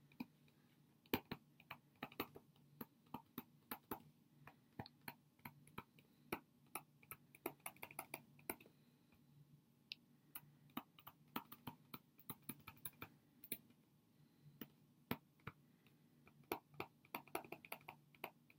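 Faint, irregular clicks and taps of a stylus on a tablet screen while handwriting, in uneven runs broken by short pauses, over a faint low steady hum.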